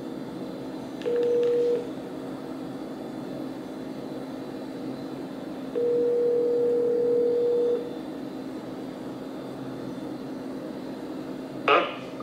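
Telephone ringback tone played through a smartphone's speaker as an outgoing call rings: a short ring about a second in, then a two-second ring after a four-second gap. A short click near the end.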